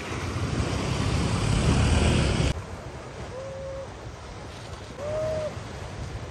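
Wind buffeting the microphone, which cuts off abruptly about two and a half seconds in. Then comes a quieter outdoor background in which two short, even-pitched calls sound about a second and a half apart, the second a little louder.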